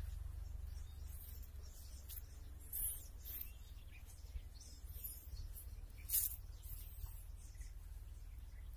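Outdoor ambience: a steady low wind rumble on the phone's microphone, with faint short high chirps of birds now and then, the clearest about three and six seconds in.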